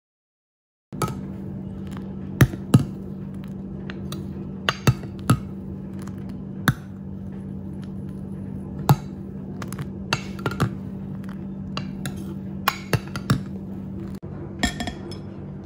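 A metal whisk and then a metal spoon clink and scrape against a glass mixing bowl as whipped egg whites are folded. The sharp clinks are irregular, start about a second in, and a few are much louder than the rest.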